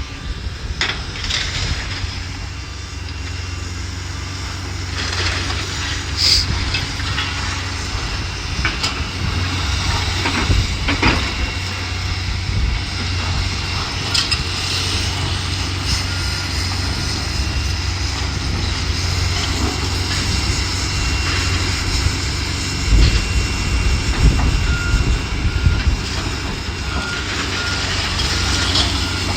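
Heavy demolition machinery running with a steady low rumble, with scattered knocks and clatters of debris and a few short beeps near the end.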